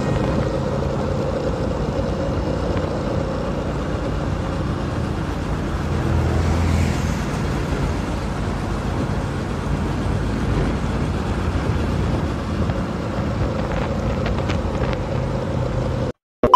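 Road traffic heard from a moving vehicle on a city street: a steady drone of engines and road noise, with motorcycles and a box truck close by. The sound cuts off abruptly near the end.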